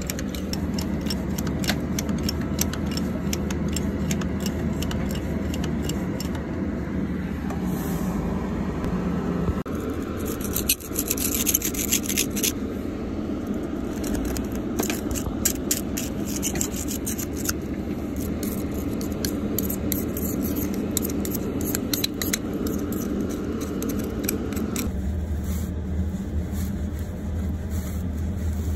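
Metal hand tools scraping and clicking against greasy steel parts of a loader's bucket hydraulic cylinder, over a steady low engine hum.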